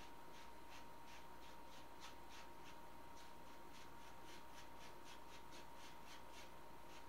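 Paintbrush loaded with acrylic paint stroking back and forth on a stretched canvas, a soft scratchy brushing at about three strokes a second.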